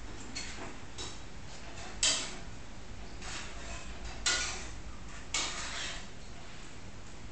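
A few short knocks and clatters, the loudest about two seconds in and twice more past the four-second mark, over a steady low hum.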